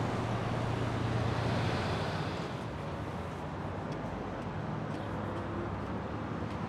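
City street traffic: a passing vehicle's engine drone fades out about two seconds in, leaving a steady traffic hum.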